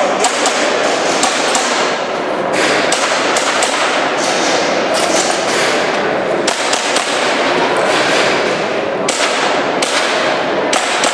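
Airsoft pistol firing a rapid, irregular string of shots, sharp cracks in pairs and quick clusters, as the shooter engages targets through wall ports. A steady rush of background noise runs underneath.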